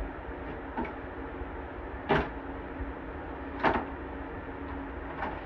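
Wood being knocked during floor demolition, four sharp knocks about a second and a half apart, over the steady hum of a window fan.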